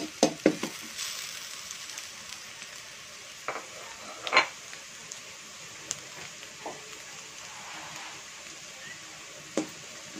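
Onion, ginger and garlic sizzling in hot oil in a stainless steel wok, with a steady hiss. A metal utensil stirs and knocks against the wok: a few quick knocks at the start and scattered single ones after, the loudest about four and a half seconds in.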